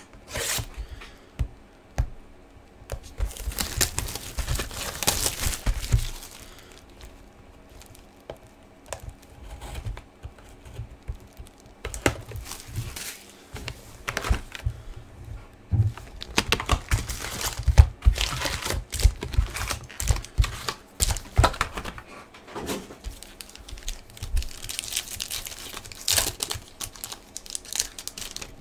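A cardboard hobby box of trading cards being handled and opened, and a foil card pack torn open: crinkling, tearing and light knocks in irregular bursts.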